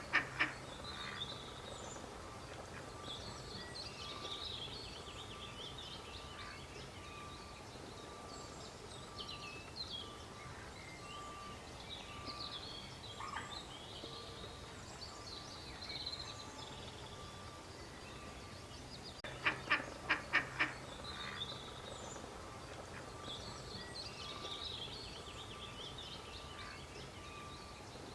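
A duck quacking in a quick run of about five quacks about twenty seconds in, with a quack or two at the very start. Small birds chirp and twitter high in the background throughout.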